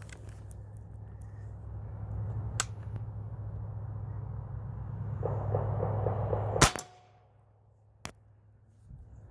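A single sharp, loud crack of a pre-charged pneumatic air rifle firing a pellet about two-thirds of the way through, followed a little over a second later by a fainter sharp click.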